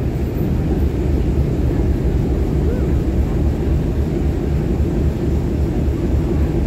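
Boat's engine running with a steady low rumble.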